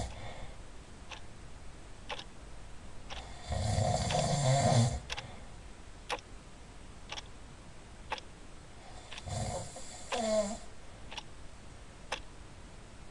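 Loud snoring: two long snores about six seconds apart, the second ending in a falling whistle. A clock ticks about once a second in the background.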